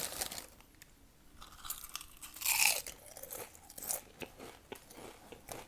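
A person chewing crunchy Doritos Cool Ranch tortilla chips close to the microphone: a run of crisp crunches, loudest about halfway through.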